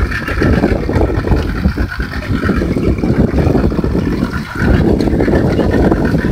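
Wind buffeting the microphone on a small open boat at sea, with water washing around the hull.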